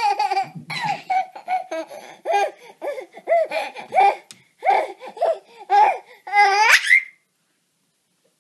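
Baby laughing in a run of short gleeful bursts, ending in a high, rising squeal of delight about seven seconds in.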